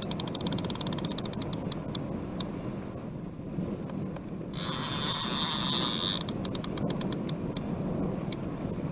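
Fishing reel drag clicking as a hooked salmon pulls line off: a fast run of clicks that slows over the first couple of seconds, then a longer continuous buzz of drag about halfway through that breaks back into slowing clicks. Rushing river water and wind run underneath.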